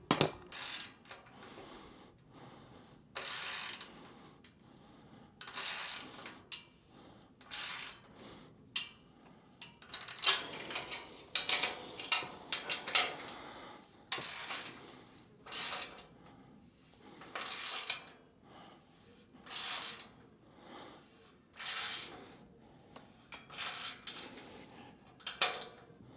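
Ratchet spanner clicking in short runs every couple of seconds, with small metallic clinks between, as bolts are tightened to mount roof rack brackets.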